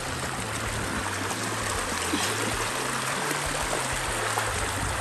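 Small rocky creek rushing and splashing over stone ledges in a steady stream.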